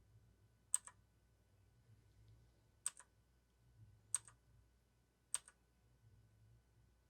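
Clicky Otemu blue switches on an eUso Z22 60% mechanical keyboard: a key pressed four times, spaced about one to two seconds apart, to cycle through the RGB backlight modes. Each press is a sharp, faint click.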